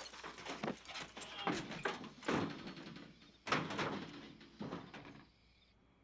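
Hurried footsteps, then the corrugated sheet-metal door of an outhouse being pulled open and banged shut, with knocks and rattles. The loudest bang comes about three and a half seconds in, and the noise dies away about a second before the end.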